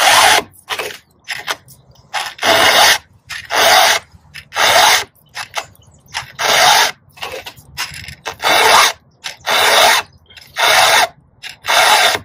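Round file rasping across chainsaw chain cutters as they are sharpened by hand: a run of push strokes, each about half a second long, coming every second or two with short pauses between teeth.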